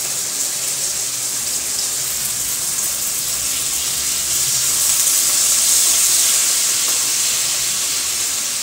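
Water poured from a bottle into a hot kadai of frying cabbage and potato curry, the pan hissing and sizzling as the water hits the hot oil and vegetables. The hiss swells about five to six seconds in, then eases slightly.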